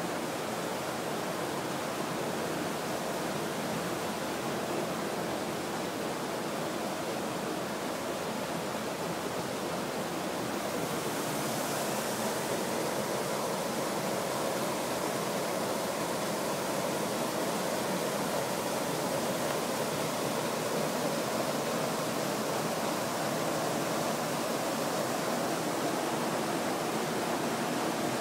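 Steady rush of water pouring into a canal lock chamber through its sluices as the lock fills.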